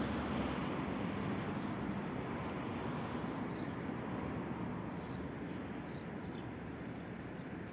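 Street ambience: a steady low rumble of road traffic that slowly fades, with a few faint high chirps.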